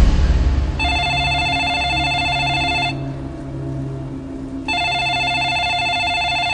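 Telephone ringing twice, each ring about two seconds long with a pause of about two seconds between them, over a low steady hum.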